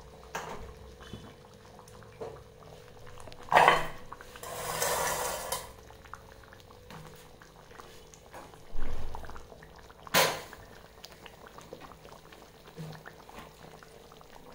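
Kitchen handling sounds as an earthenware curry pot is taken off a gas stove and set down on a stone counter. There is a small click near the start, a knock about three and a half seconds in followed by a second or so of rustling hiss, a dull low thump near nine seconds, and a sharp knock about ten seconds in. A faint steady hum runs underneath.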